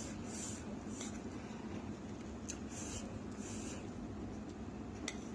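Quiet eating sounds close to the microphone: several short, soft hissy slurps or breaths and two faint clicks, about two and a half seconds in and near the end.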